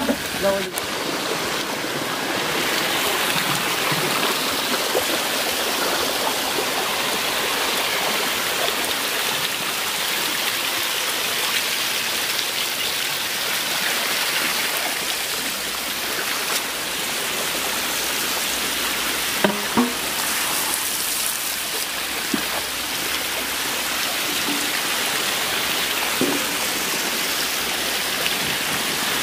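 Steady rush and splash of water in a tank crowded with hybrid magur catfish fingerlings, churned by the feeding fish and by water spraying in from a pipe. A couple of brief knocks about two-thirds through.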